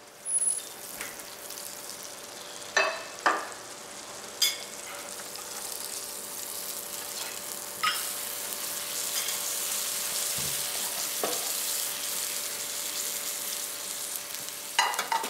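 Hot fat sizzling in frying pans on a stainless-steel stove, louder over the second half. Several sharp knocks of pans and utensils in the first half.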